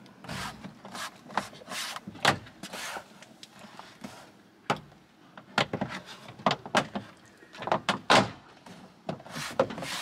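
A Fiat 500's plastic door trim panel being hooked onto the top of the door and pressed into place: a string of irregular plastic knocks and clicks with some rubbing.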